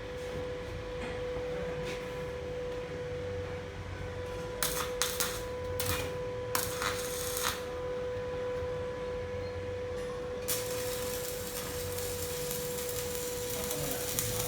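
A steady high-pitched hum throughout, with a handful of sharp metallic clicks and taps about five to seven seconds in. About ten seconds in, an electric welding arc strikes and settles into a steady crackling sizzle.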